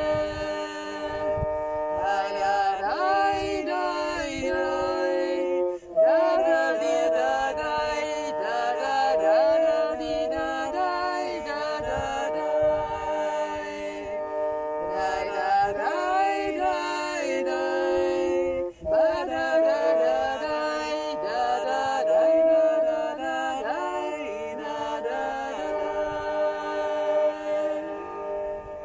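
Two women singing a Russian song together over the steady drone of a bowed fiddle, the voices pausing briefly twice between lines.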